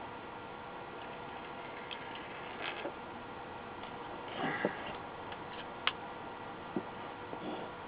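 Small clicks, taps and rustles of a circuit board being handled as new electrolytic capacitors are pushed into it and their leads bent apart on the back, with one sharp click about six seconds in, over a steady low hiss.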